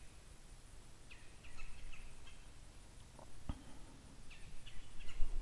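A bird calling in short chattering phrases, about a second in and again near the end, with one sharp click in between.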